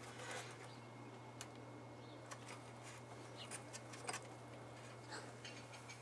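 Faint, scattered ticks and scrapes of an X-Acto knife scoring the jacket of LMR-400 coax cable, over a steady low hum.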